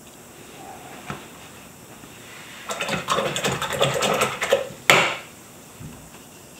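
Rapid clattering and rattling of small hard objects for about two seconds, from painting supplies being handled off the page, then a single sharp knock.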